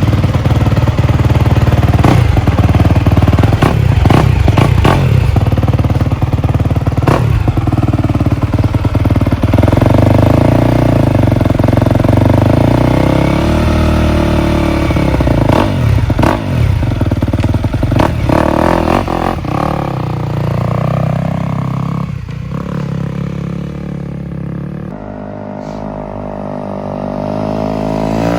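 Yamaha YZ250F dirt bike's four-stroke single-cylinder engine running loud under throttle, its pitch rising and falling as the throttle is worked, with scattered short knocks. About 25 seconds in it drops to a quieter steady note, then revs up again at the end.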